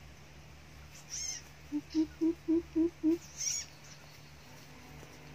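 Greater coucal giving its deep hooting call: a run of six evenly spaced low hoots about a quarter second apart, the first a little lower. A brief high squeaky call comes just before and just after the run.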